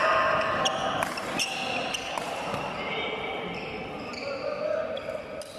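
Badminton rally: several sharp racket strikes on the shuttlecock, with shoes squeaking on the court floor and voices in the background.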